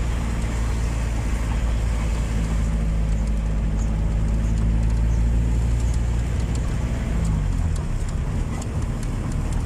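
Car engine and road noise heard from inside the cabin while driving: a steady low drone. About seven seconds in, the engine note dips and shifts.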